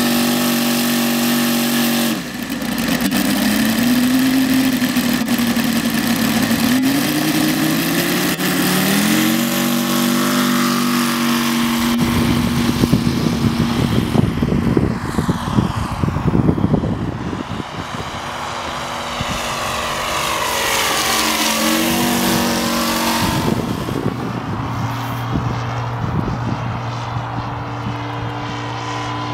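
The 64cc P.H. FS400AR radial engine of a 1/5-scale Stearman PT-17 model biplane, with its propeller. It runs steadily on the ground, then opens up with a rising pitch for the takeoff run. In the air the pitch swings down and up as the model flies past, with a rough, noisy stretch in the middle.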